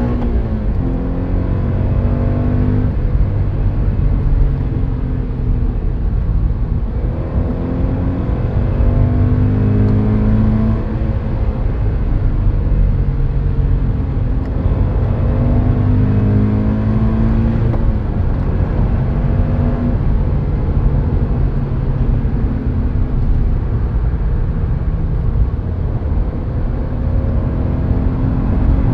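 Subaru BRZ / Scion FR-S 2.0-litre flat-four with unequal-length headers and an Invidia Q300 cat-back exhaust, heard from inside the cabin with the windows up, pulling hard under full throttle. The engine note climbs and falls away several times, as through repeated hard accelerations and shifts.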